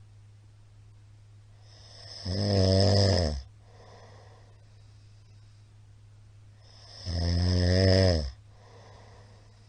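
A middle-aged man snoring, loud, which the uploader puts down to his having been drinking. There are two loud snores about five seconds apart, each lasting about a second, with faint breaths between them.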